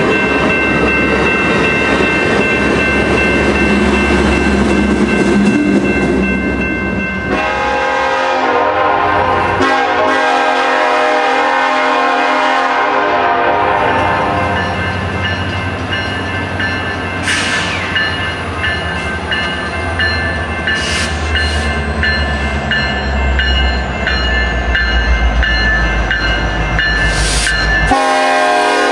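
Bilevel passenger cars rolling past for the first seven seconds or so. Then a Union Pacific SD70ACe freight locomotive's air horn sounds long chord blasts for grade crossings as the train approaches slowly, over a low diesel rumble that grows toward the end.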